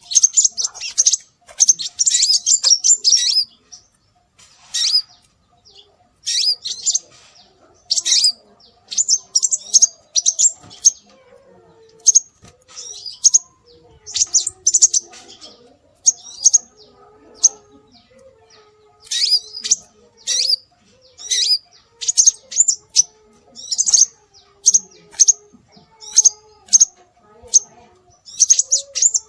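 Scarlet minivet calls: short high-pitched chirps in quick clusters, repeated every second or two, with short pauses between. A faint lower warbling runs underneath.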